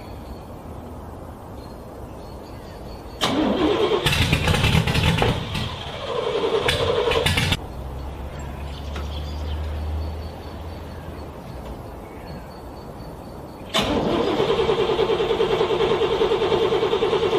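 Car starter motor cranking a cold engine in separate attempts. A loud, uneven stretch of cranking begins about three seconds in and lasts a few seconds. Near the end a steady, rhythmic cranking run starts, with the engine turning over without catching.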